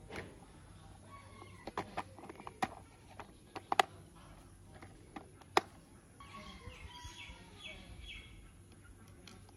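Hard plastic toy car parts handled and fitted together: a scatter of sharp clicks and taps, the loudest about four and five and a half seconds in. From about six to eight seconds there is faint repeated chirping.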